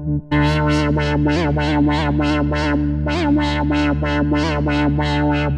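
Expressive E Osmose 49 synthesizer playing a held low chord under a quick repeating figure of higher notes, about three a second, with the pitch of some notes wobbling in vibrato. The playing breaks off briefly just after the start and stops at the end, leaving a short fading tail.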